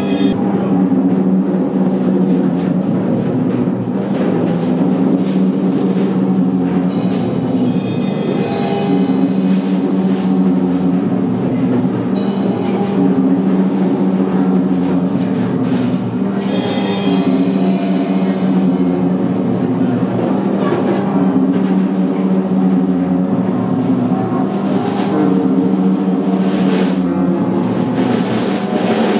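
Live experimental electronic sound performance: a dense, steady low drone of held tones, overlaid with clicking, crackling percussive textures that thicken a few times and then thin out.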